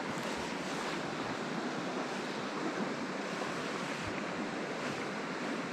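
Steady rush of flowing river water over a trout run.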